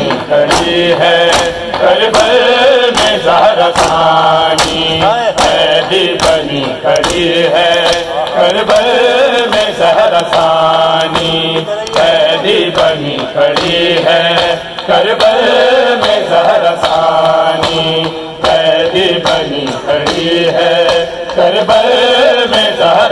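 Voices chanting an Urdu nauha (Shia mourning lament) in a sustained sung line, over a steady rhythm of sharp slaps of hands striking bare chests in matam, a little under one a second.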